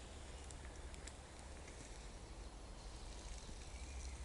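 Quiet forest ambience: a steady low rumble with a few faint clicks, and no one speaking.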